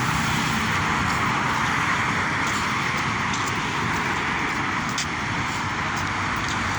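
Steady rushing outdoor noise, a constant hiss with a low rumble underneath and a few faint clicks.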